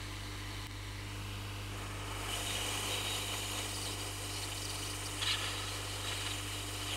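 Hot-air rework station blowing onto a circuit board to melt solder under SMD chips: a steady airflow hiss that comes in about two seconds in, over a constant low mains hum.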